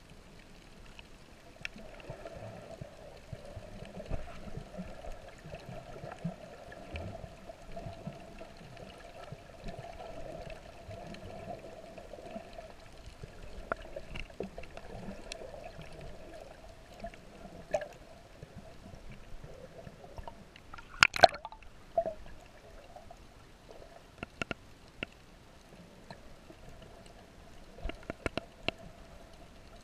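Underwater ambience picked up by a camera in its waterproof housing: muffled water sound with a faint steady hum, scattered sharp clicks, and a loud cluster of knocks about two-thirds of the way through.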